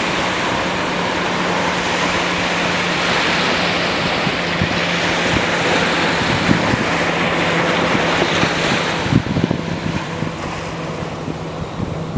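Ocean surf washing onto a beach, the wash swelling and then falling away about nine seconds in. Wind buffets the built-in camera microphone in low thumps.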